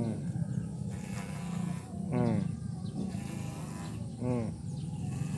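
Corded electric hair clipper buzzing steadily as it cuts through hair. Twice, about two seconds apart, an animal calls over it, each call falling in pitch.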